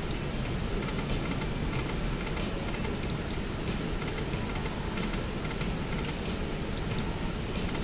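Penny video slot machine spinning its reels, a run of quick ticking clicks over a steady background din.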